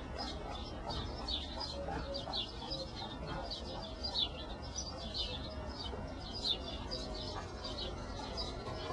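Small birds chirping over and over in short high notes, over a low steady background hum.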